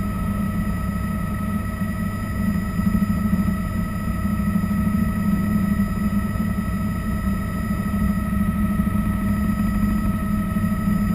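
Bell 206 JetRanger helicopter's turboshaft engine and rotors running steadily, heard from inside the cockpit. It is a constant low drone with several steady whine tones above it.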